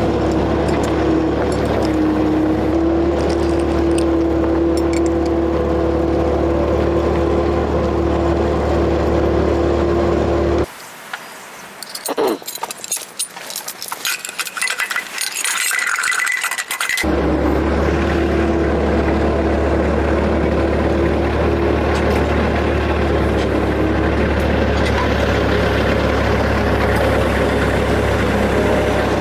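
A motor vehicle engine running steadily at a constant speed, broken about ten seconds in by a few seconds of quieter clicking and knocking before the steady running returns.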